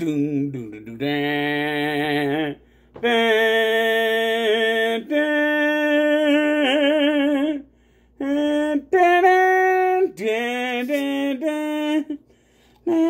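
A voice singing a wordless tune in long held notes with a wavering pitch, in several phrases broken by short pauses.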